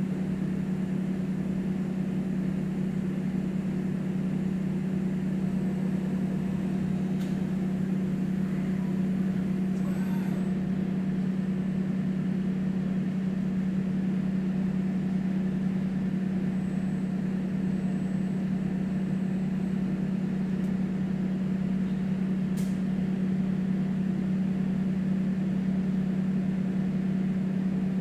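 Steady low machine hum from a CNC tool grinder running in its enclosure, with a few faint clicks.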